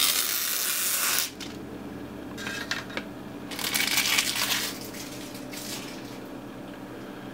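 Glossy plastic protective film being peeled off the dry film solder mask on a circuit board: a loud crackling rustle lasting about a second. Two shorter rustles follow a few seconds later.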